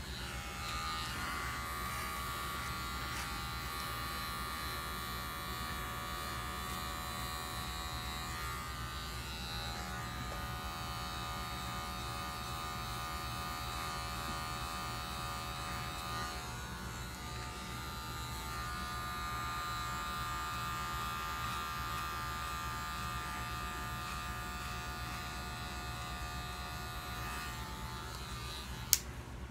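Electric hair clippers with a 1.5 guard running as they cut hair, a steady buzz whose pitch shifts slightly a couple of times. A single sharp click near the end.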